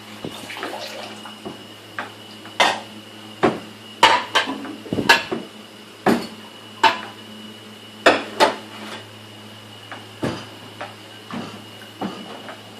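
Dishes and cutlery clinking and knocking together as they are handled while washing up, a dozen or so sharp, irregular clatters.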